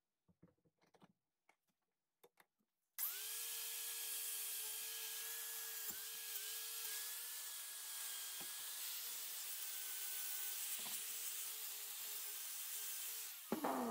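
Angle grinder with a wire wheel scouring rust off a steel axe head: a steady motor whine over a harsh scraping hiss, starting suddenly about three seconds in, with small dips in pitch as the wheel bites. Near the end it is switched off and the whine falls in pitch as it spins down.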